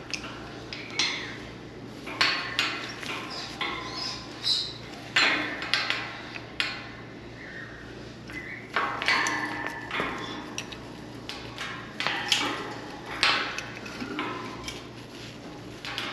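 Irregular knocking and clinking of hard objects, the taps and clatters of a parrot handling toys or things in its cage, coming every second or so and varying in loudness.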